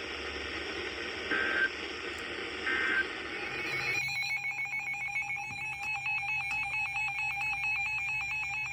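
Radio static hiss with two short beeps, then about four seconds in a rapid trilling electronic alert tone takes over: the alarm of an emergency weather alert broadcast, marking the start of a new warning.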